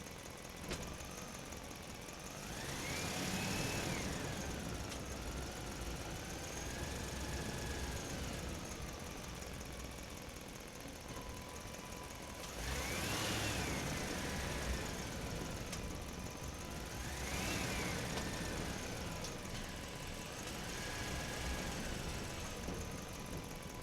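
A motor whining, its pitch rising and then falling three times, each time with a swell of running noise, over a steady background hum.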